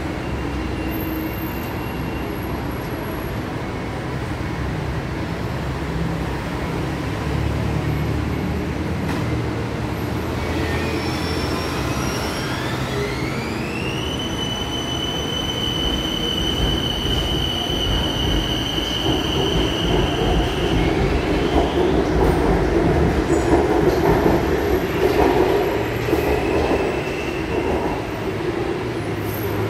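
Bangkok BTS Skytrain electric train at an elevated platform, pulling out. A high whine rises in pitch about ten seconds in and then holds steady for several seconds. It gives way to a louder rumble of the train on the track near the end.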